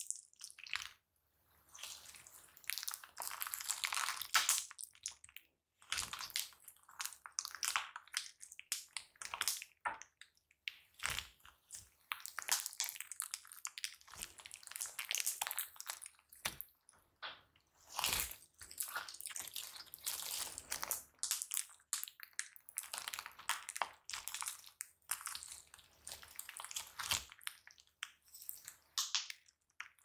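Hands kneading, pressing and stretching a large mass of glossy slime: wet crackling, popping and squishing in irregular runs, with short pauses between.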